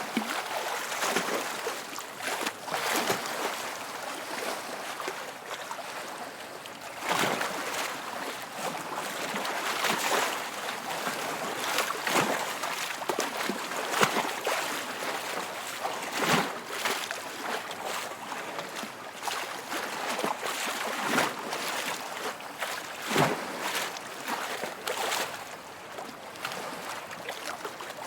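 Waves lapping and splashing in irregular washes every second or two.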